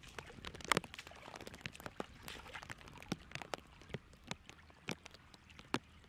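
Irregular splashing and sloshing in shallow muddy water as bare feet step through it and hands pull a wet net out, with several sharp slaps, the loudest a little under a second in.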